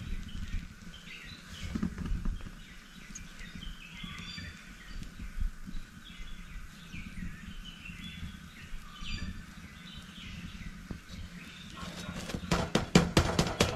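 Small birds chirping repeatedly over a steady low hum. About twelve seconds in, a quick run of pats and rustles begins as a hand presses down on the rice bhakri on the hot tawa.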